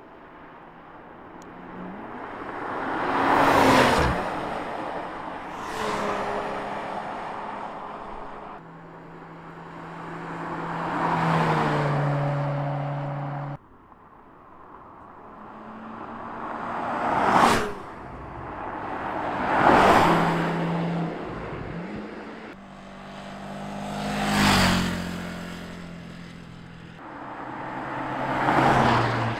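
Cars passing close by one after another, about seven in all, each engine swelling to a loud peak as it goes past and falling in pitch as it pulls away. Some are accelerating hard, and abrupt cuts break in between passes.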